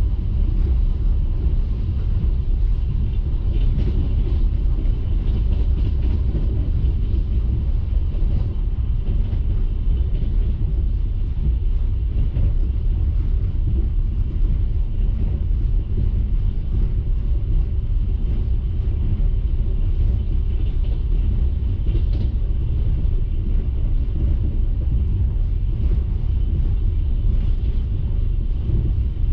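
Steady low rumble of a passenger railway carriage running along the track, heard from inside the carriage at the window.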